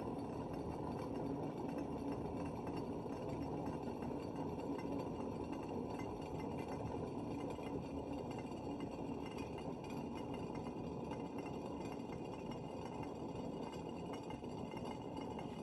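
Water boiling in a Belgian balance siphon coffee maker's boiler, a steady bubbling hiss as steam pushes the water over into the coffee chamber. It ends in a sharp clack, typical of the balance tipping and the snuffer cap dropping onto the burner once the boiler has emptied.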